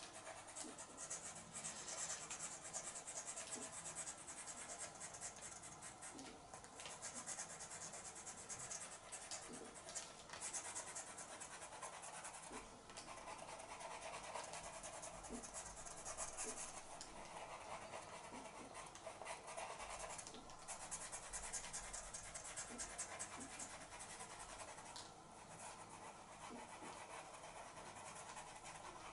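Pastel pencil scratching across pastel mat paper in many short, quick strokes, with brief pauses between runs of strokes.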